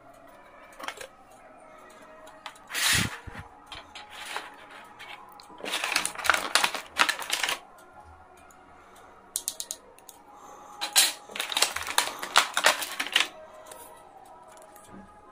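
Handling of a stationery set: a tin pencil box, pencils and a plastic ruler clicking, tapping and clattering against each other and a clear plastic blister tray, in several short bursts with a duller knock about three seconds in.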